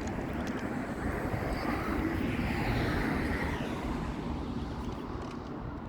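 A vehicle passing by: a rushing noise that swells to a peak about halfway through and then fades away.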